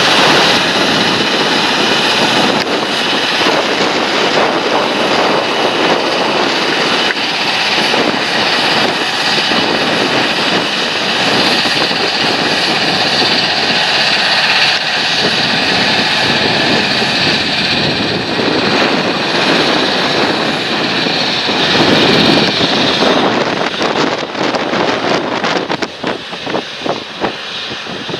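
Large John Deere tractor running steadily under load while working a field. About 25 seconds in, the sound turns uneven and fluttering and drops in level.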